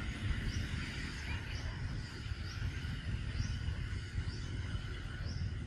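Outdoor wildlife ambience. A short rising chirp repeats about once a second over a steady high drone and a low rumble.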